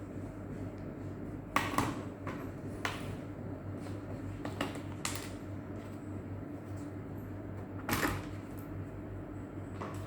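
A few sharp clicks and taps of small hard parts being handled, over a steady low hum.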